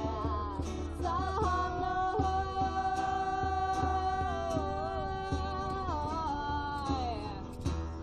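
Live street band playing an instrumental break: strummed acoustic guitar through a small amplifier with a djembe and bass drum beat, under a long-held melody line with vibrato that wavers and fades near the end.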